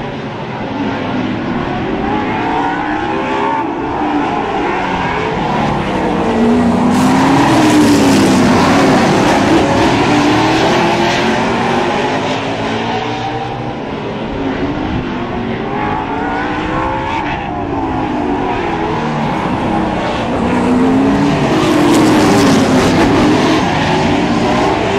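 A field of outlaw super late model stock cars racing, their V8 engines rising and falling in pitch as the pack sweeps past. The pack passes loudest twice, about seven to ten seconds in and again about twenty-one to twenty-three seconds in.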